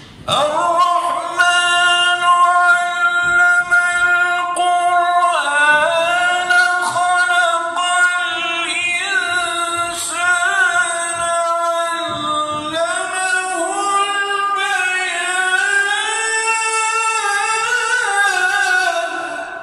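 A man chanting Quran recitation into a microphone in one long melismatic phrase. He holds a steady note for about five seconds, then moves into wavering, ornamented runs. His amplified voice echoes in the large mosque hall as it ends.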